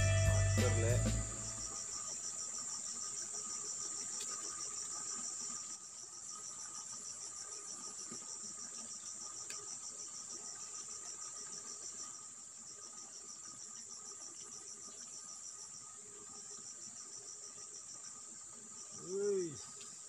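Steady chorus of crickets or similar insects: a high, fast-pulsing trill over a fainter, lower steady trill. Background music cuts out about a second in, and a short rising-and-falling call sounds near the end.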